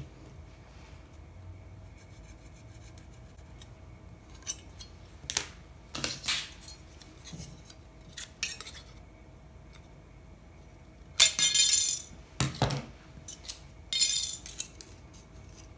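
A thin aluminum flashing strip handled and trimmed with scissors: scattered light metallic clicks and snips, then two louder, longer metallic crinkles near the end with a low knock between them.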